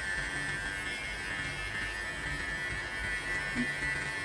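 Xiaomi Enchen Hummingbird electric hair clipper running with a steady buzz, its blades trimming hair at the nape of the neck.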